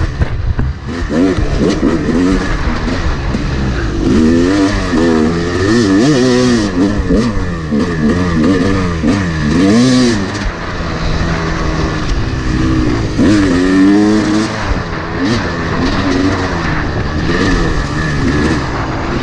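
Yamaha YZ250 two-stroke dirt bike engine being ridden hard, its pitch rising and falling over and over as the throttle is opened and closed through the trail's turns and bumps.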